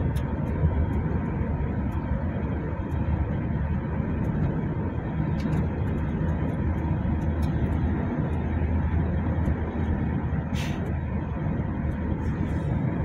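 Steady road and engine noise inside the cabin of a moving car at highway speed. A brief hiss comes about ten and a half seconds in.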